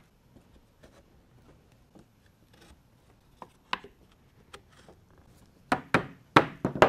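Plywood slats pushed into the slots of a plywood chair frame, with light wooden clicks and rubbing. Near the end, a rubber mallet knocks a slat into its slot with about four sharp taps.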